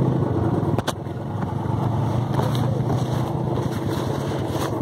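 KTM Duke's single-cylinder engine idling steadily, with a sharp click a little under a second in.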